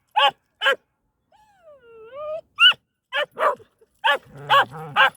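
A dog barking in short, sharp barks, with a drawn-out whine about two seconds in that dips and then rises in pitch. More barks follow, with a low growl under the last few.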